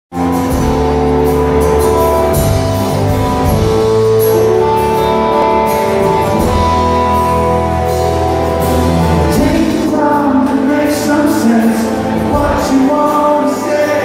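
Live band recorded from the audience: acoustic guitar strumming under long held chords, with a male lead voice singing from about ten seconds in.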